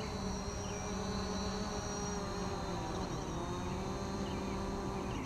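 DJI quadcopter's propellers buzzing steadily as it hovers low, coming in to land. Its pitch dips and comes back up about three seconds in.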